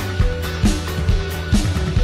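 Background music with a steady drum beat, about two beats a second.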